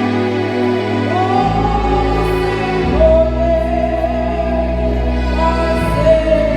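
Slow gospel music with singing over sustained keyboard chords and a deep bass that shifts about a second and a half in and again at three seconds.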